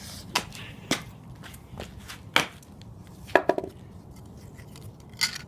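A handful of sharp knocks from hard objects striking a hard surface, spaced out over several seconds. The loudest is a quick rattling cluster of knocks about three and a half seconds in.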